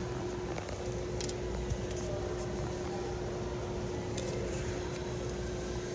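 Steady background noise of a shop interior: an even hiss with a constant low hum, and a few faint light clicks.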